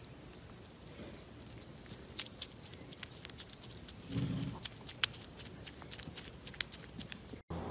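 Marmoset chewing and licking soft food close to the microphone: a steady run of small wet clicks and smacks. There is a brief low sound about four seconds in.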